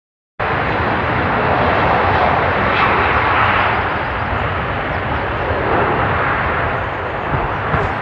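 Boeing 757's jet engines running, a loud steady noise that starts abruptly about half a second in.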